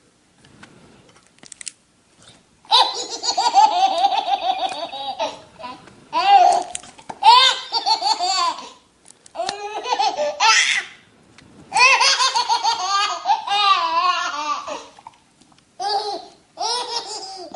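A baby laughing hard in repeated bouts of high-pitched belly laughter, starting about three seconds in, with short breaks for breath between the bouts.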